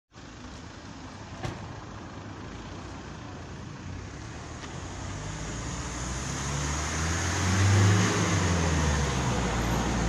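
Road traffic: a motor vehicle's engine grows louder over several seconds and is loudest about eight seconds in, over a steady street hiss, with one short click about a second and a half in.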